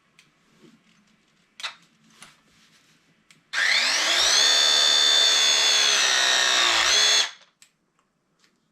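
Cordless power tool motor spinning up with a quickly rising whine, running steadily for about three and a half seconds, then stopping abruptly.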